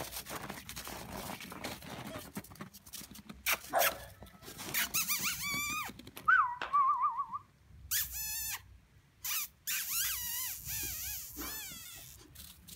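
Snow crunching under small paws, then a chocolate Labrador puppy whining in several high-pitched, wavering bursts through the second half.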